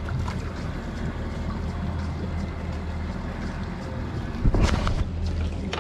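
Twin Mercury Verado 300 V8 outboards idling with a steady low hum, under wind noise on the microphone. A loud dull thump comes about four and a half seconds in.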